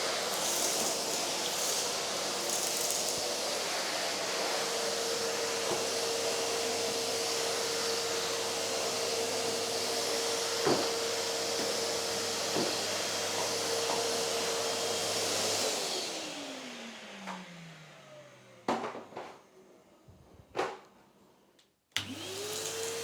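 Numatic Henry Pet cylinder vacuum cleaner running with a steady motor whine. About 16 s in it is switched off and the motor winds down, its whine falling over about three seconds. A few knocks follow, and near the end it is switched back on and spins up again.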